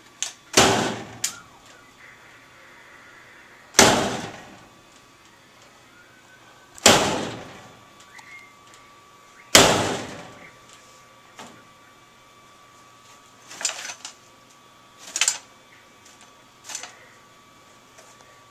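A metal broom handle being swung and whacked against something: four loud sharp strikes about three seconds apart, each ringing out briefly, then three weaker ones more quickly.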